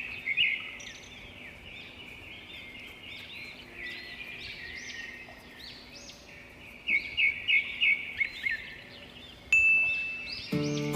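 Small birds chirping and twittering in quick, repeated short calls, with a run of louder chirps about seven seconds in. Near the end a steady high whistle-like tone sounds for about a second, then music begins.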